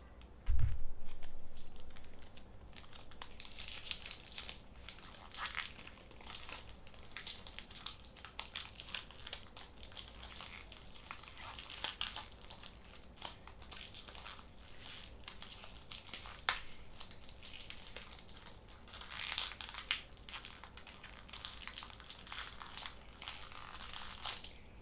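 Foil wrapper of a Pokémon booster pack crinkling and tearing as it is opened and handled, with one loud thump about half a second in.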